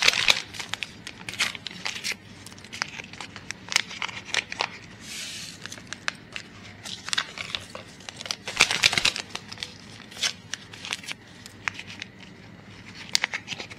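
Small vanilla-sugar sachets being torn open and crinkled, then tipped out over raw eggs in a bowl: a run of sharp paper-and-plastic crackles and tearing, with a short hiss of granules pouring about five seconds in.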